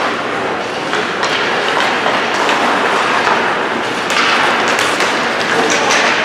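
Ice hockey play heard from the stands: skates scraping the ice over a steady hiss of rink noise, with sharp clacks of sticks and puck a few times.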